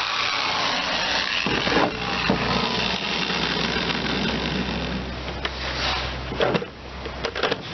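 A handheld power tool running steadily, working on the kayak's plastic hull. It eases off briefly about six and a half seconds in, with a few sharp knocks around then.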